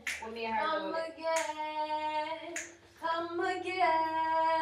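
Female voice singing a melody in long held notes, with short breaks between phrases.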